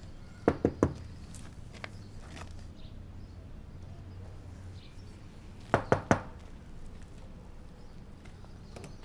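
Three quick knocks on a ground-floor window, repeated about five seconds later as a second set of three.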